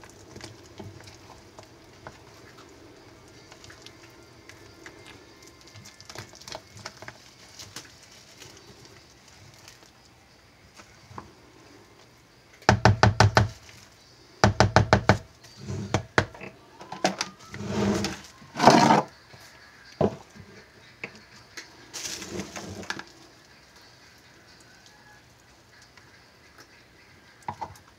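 Silicone spatula stirring and scraping thick hot process soap batter in a plastic mixing bowl, quiet at first. About halfway through come two loud rapid rattling bursts of about a second each, followed by several irregular knocks and scrapes.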